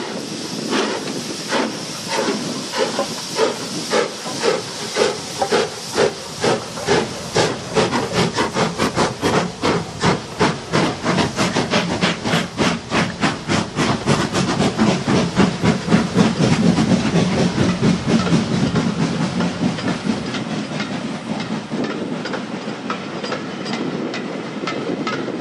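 Two steam locomotives working a train past at close range: L&YR 0-6-0 No. 52322 leading and LMS 'Crab' 2-6-0 No. 13065 behind, both blasting out sharp exhaust beats that come faster and faster. The rumble of the train rolling past is loudest around the middle, and it carries on under fainter beats as the coaches go by near the end.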